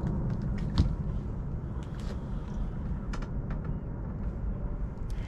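Boat engine running with a steady low rumble, with a few light clicks of tackle or gear.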